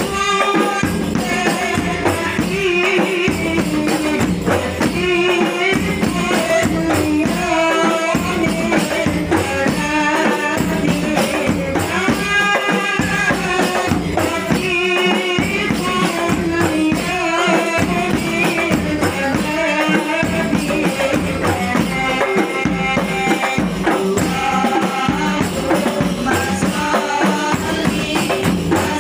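Women's hadroh group singing a sholawat together over rebana frame drums beaten in a steady, dense rhythm.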